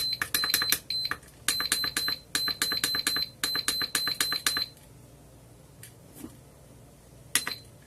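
iMax B6 balance charger beeping at each button press as the charge current is stepped up: runs of rapid short high beeps, about five a second, stopping about two-thirds of the way in, then one more brief pair of beeps near the end.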